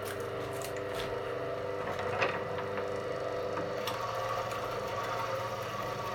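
Electric cable-stripping machine running steadily, its motor and gear-driven feed rollers pulling a cable past the slitting blade, with a few sharp clicks as it works.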